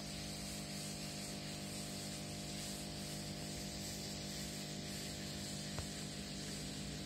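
Aquarium aeration: a steady electric hum under a constant hiss of air bubbling through the water, with one small click near the end.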